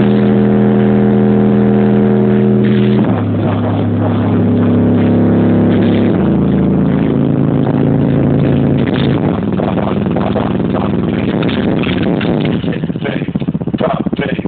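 Bass test tones played loud through a car audio system with a Pioneer Champion Series 12-inch subwoofer. They are deep held tones that drop in pitch in steps about every three seconds, then turn rougher and more distorted.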